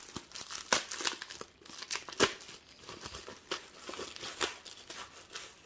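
Plastic bubble mailer being pulled open and handled: irregular crinkling of the plastic with a few sharper tearing sounds as the seal comes apart.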